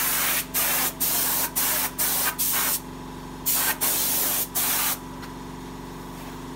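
Compressed-air gravity-feed spray gun spraying paint onto a bicycle frame in short hissing bursts, about two a second, with a brief pause near the middle. The spraying stops about five seconds in, leaving a steady low hum.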